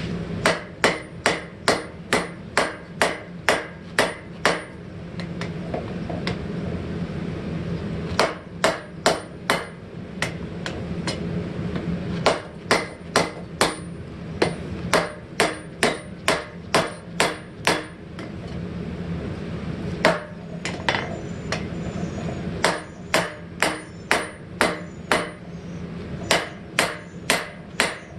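Blacksmith's hand hammer striking hot steel on an anvil, drawing the end of an old hammer head out into a spike. Runs of sharp, ringing blows at about two a second, broken by short pauses, over a steady low hum.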